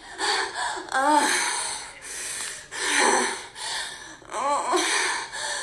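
A person making strange breathy noises: repeated loud gasps and wheezy exhalations, about one a second, mixed with short voiced sounds that rise and fall in pitch.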